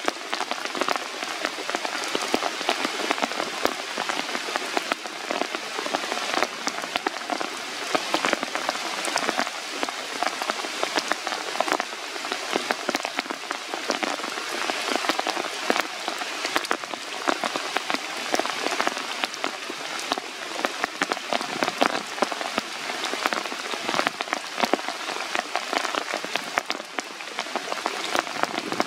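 Rain falling steadily on forest leaves: an even hiss with a dense patter of individual drops.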